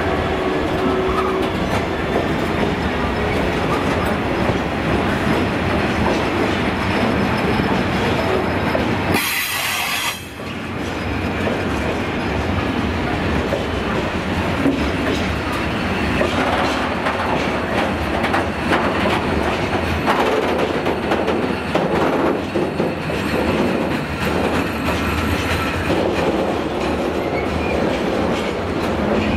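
A long freight train's covered wagons rolling past close by: a steady rumble of wheels on rail, with knocks as the wheels cross rail joints. A short sharp hiss comes about nine seconds in.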